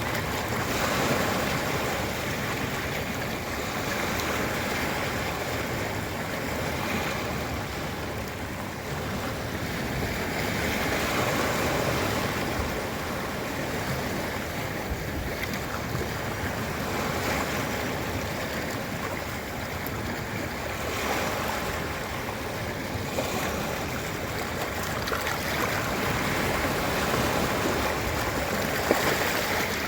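Ocean surf washing onto a beach: a steady rush of breaking waves that swells and eases every few seconds.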